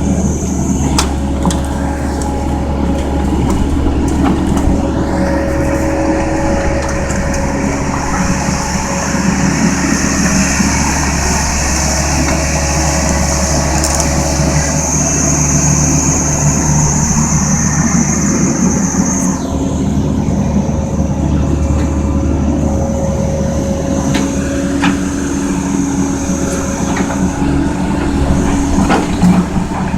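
Kobelco SK135SR crawler excavator running, a steady engine drone with a high whine above it that rises about five seconds in and falls back about nineteen seconds in.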